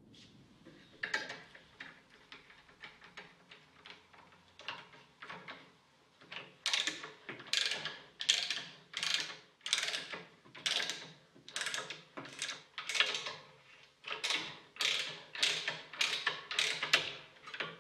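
Nerrad adjustable ratchet tube cutter ratcheting around a copper pipe as its handle is swung back and forth to cut the pipe. Light clicks at first; from about six seconds in, a steady run of louder ratchet strokes, about one and a half a second.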